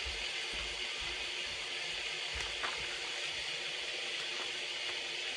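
Steady hiss of rain falling, with a faint tick or two.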